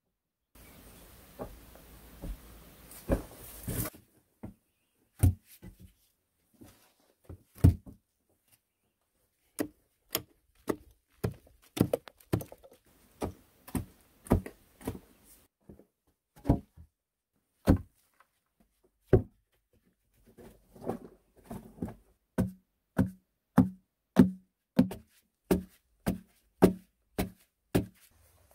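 Short-handled digging tool striking into hard clay soil, a series of dull thuds as clods break loose. The strikes come unevenly at first, then settle into a steady run of about one and a half a second near the end. A light hiss sits under the first few seconds.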